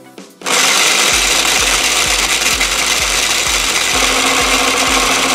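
Toy blender switched on with its push button: a loud, steady whirring buzz starts suddenly about half a second in, with a regular low throb about twice a second.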